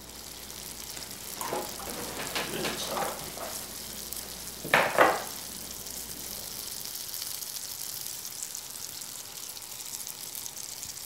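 Dry rub shaken from a shaker bottle onto a rack of raw pork baby back ribs, giving a steady high sifting hiss, with a brief louder sound about five seconds in.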